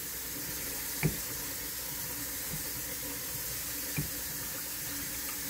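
Wooden rolling pin rolling sourdough dough out on a wooden board, with short knocks about one second and four seconds in, over a steady hiss in the background.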